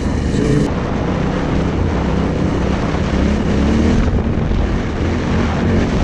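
Yamaha Ténéré 700's parallel-twin engine running under way on dirt, pitch shifting with the throttle, over heavy wind rumble on the camera microphone.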